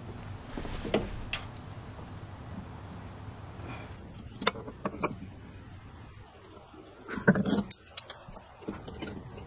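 Light metallic clicks and clinks as metal brake lines and their fittings are handled and fitted by hand, in scattered taps with a louder cluster about seven seconds in. A low steady hum underlies the first four seconds and then drops away.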